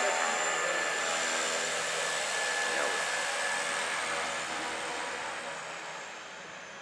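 De Havilland Canada DHC-6-300 Twin Otter's twin Pratt & Whitney PT6A-27 turboprops running at taxi power: a high steady turbine whine over a lower propeller drone. The sound fades gradually over the last few seconds as the aircraft turns and moves away.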